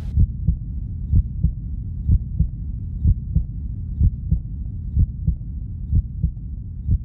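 Low double thumps in a heartbeat rhythm, about one pair a second, over a steady low hum. This is the pulsing intro of a song arrangement before the vocal comes in.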